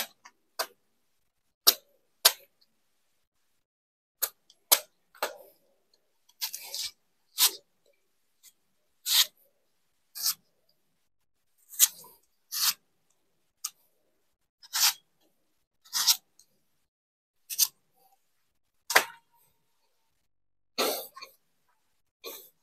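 Machete chopping into the stem of a felled horn plantain (pisang tanduk) banana plant: about twenty separate short, sharp blows, roughly a second apart, with a pause before the last one.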